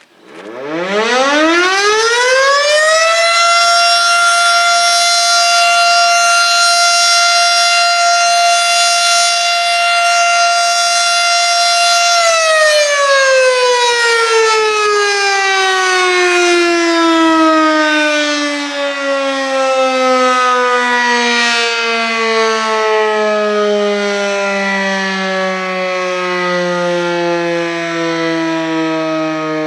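Federal Sign & Signal Model 5 outdoor warning siren sounding a short-alert test. It winds up over about three seconds to a steady high tone, holds it for about nine seconds, then winds down slowly, the pitch still falling at the end.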